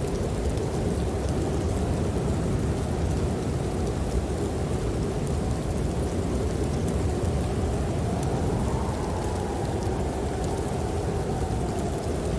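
Snowstorm wind howling over a deep steady rumble, one howl rising and falling in pitch about two-thirds of the way through, with faint fireplace crackles.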